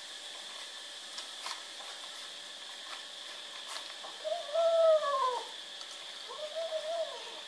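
A kitten giving two drawn-out cries, each rising then falling in pitch. The first, about four seconds in, is the louder; the second comes near the end. They are the kind of growly mew a kitten makes while competing for food at a shared bowl.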